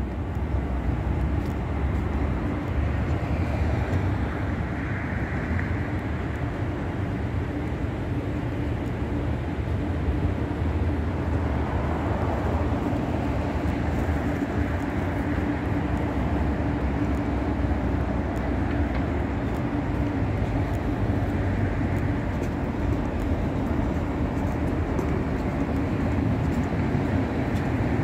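Steady traffic noise on a city street: a continuous low rumble with a steady hum underneath.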